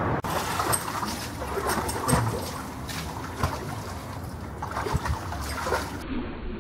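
A large dog moving about in a plastic wading pool: water sloshing and splashing in irregular bursts, with dripping and splattering as it climbs out.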